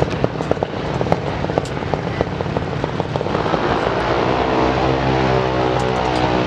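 Mid-mounted engine of an early-1950s Chevrolet pickup drag truck idling, rough and uneven with sharp pops at first, then settling into a steadier, more even running note about halfway through.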